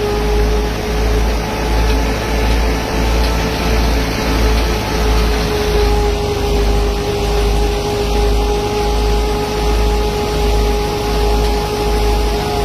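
Tractor-driven wheat thresher running steadily: a constant high whine over a low, regular throbbing rumble.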